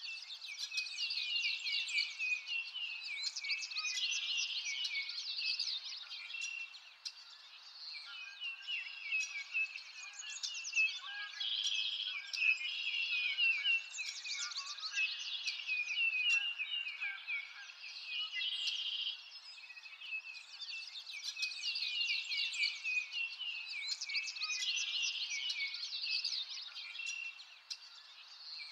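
Several songbirds chirping and trilling at once, a dense, continuous chorus of quick high calls that swells and eases, with a brief lull about a quarter of the way in and another near the end.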